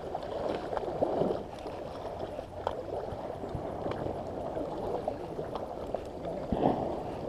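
Shallow flood water sloshing and splashing, swelling louder about a second in and again near the end, with a few small knocks.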